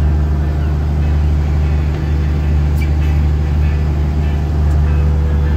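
A pirate-ship tour boat's engine running steadily under way: a low, even drone.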